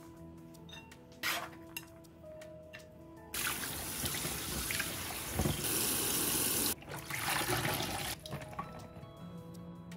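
Kitchen tap water running hard onto green bell peppers being rubbed clean in a colander in the sink. It starts about a third of the way in and cuts off after about five seconds. Before it come a few light knife taps on a plastic cutting board.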